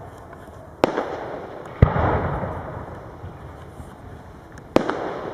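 Aerial firework shells bursting: three sharp bangs, about a second in, about two seconds in and near the end, each followed by a long rolling echo that fades away.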